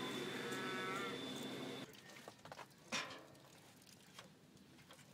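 A cow mooing in one long, drawn-out call that cuts off about two seconds in, followed by a few light clicks and one sharp knock.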